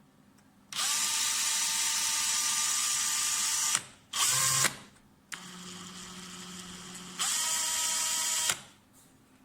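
Cordless drill motor running unloaded in trigger bursts. It spins up and runs steadily for about three seconds, gives a short blip, runs more quietly at low speed for about two seconds, then spins up to full speed again for over a second and stops.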